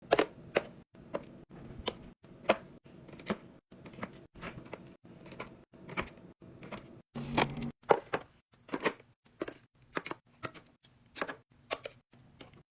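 Food packages and plastic containers being handled and set down while restocking a fridge: a string of sharp, irregular clicks and knocks, about one or two a second, with a brief rustle a little past the middle.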